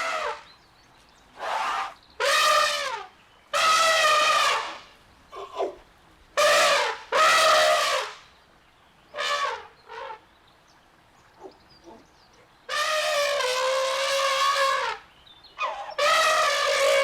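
Elephant trumpeting: a run of about ten brassy calls, most about a second long or shorter, with one long call of about two seconds past the middle.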